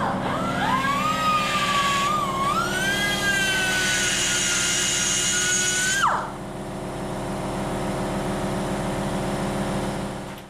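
Turbocharger clamped in a vise, spinning up: a whine rising in pitch for about six seconds, then dropping away sharply, over a steady low hum.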